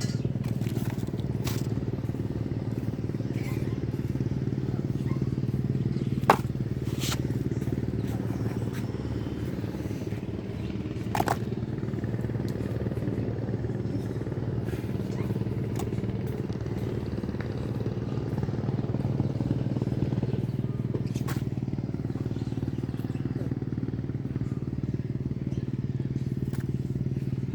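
A motor running steadily with an even drone, with scattered sharp clicks and knocks, the loudest about six seconds in and another around eleven seconds.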